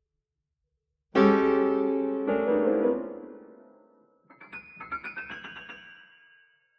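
Solo piano playing a birdsong-like passage. After about a second of silence, a loud chord is struck and rings on as it fades. Then comes a quick flurry of short notes that dies away.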